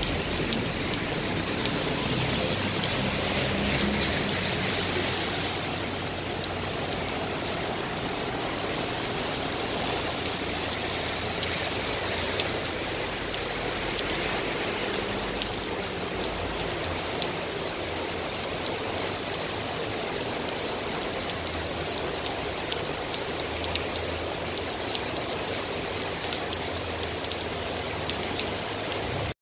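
Heavy rain falling on a city street: a steady hiss of rain on pavement, with a low rumble of traffic that is stronger in the first few seconds.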